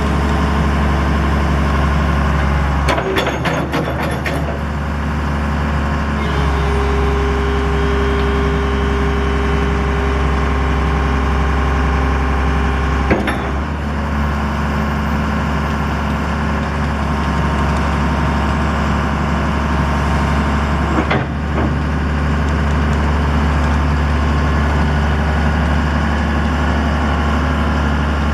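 A 1993 Dresser 6220LC excavator's diesel engine running steadily. Sharp clanks come about three seconds in, near the middle and about two-thirds through, and a steady higher whine lasts a few seconds after the first clanks.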